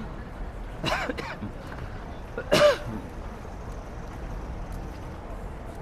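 Two short vocal sounds from a person, about a second and a half apart, the second louder, over a steady low background hum.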